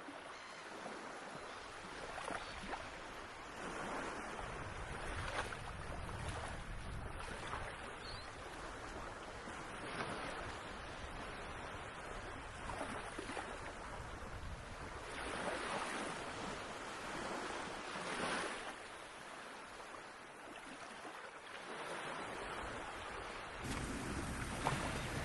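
Ocean surf washing onto the shore in repeated surges every few seconds, with a low wind rumble on the microphone that strengthens near the end.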